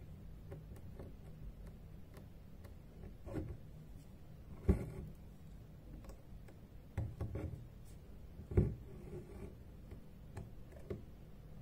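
Hand-embroidery handling sounds as needle and gold thread are worked through taut fabric: faint rubbing with a few short sharp taps, the two loudest about 5 and 9 seconds in, over a low steady room hum.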